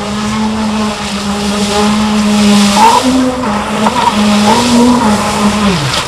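Electric RC speedboat running at speed, its motor and propeller giving a steady whine over the hiss of water spray. About halfway through the pitch wavers up and down through the turns, then slides down just before the end as the boat slows.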